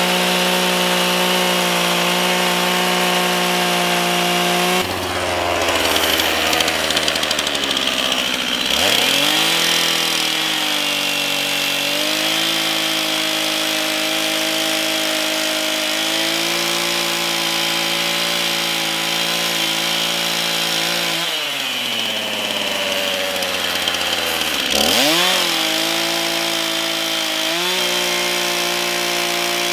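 Stihl two-stroke chainsaw cutting a notch into a peeled log at high revs. About five seconds in, and again about twenty-one seconds in, it drops toward idle, then revs back up and cuts on.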